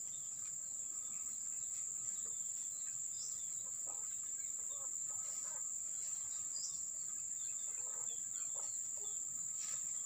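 Steady high-pitched drone of insects, with occasional short bird calls over it.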